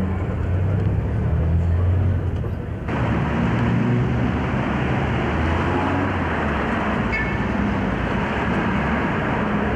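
Street traffic noise: a steady rumble of cars and other vehicles. About three seconds in, the sound changes abruptly to a brighter, fuller traffic noise.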